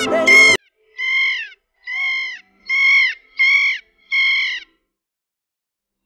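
Kea calling: about seven loud, high calls, each about half a second long and dropping in pitch at the end, coming roughly once a second before stopping near the end. Background piano music cuts off about half a second in.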